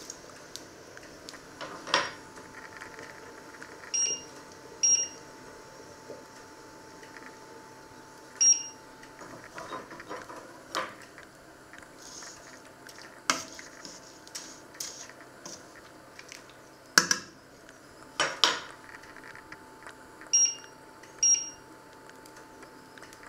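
Metal spoon stirring spaghetti in a stainless steel pot of boiling water, knocking against the pot several times. The induction hob's touch controls beep five times, two of them in quick pairs, as the power setting is changed. A steady faint whine runs underneath.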